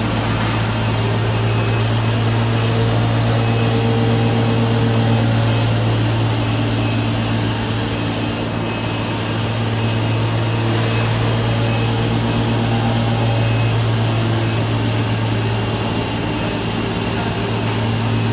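OLIVINOX 300 mini continuous olive-oil extraction machine running, a loud, steady low hum with a few constant higher whines over a haze of mechanical noise.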